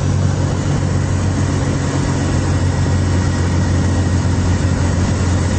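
Light aircraft's piston engine and propeller running steadily: an even, low drone that holds throughout.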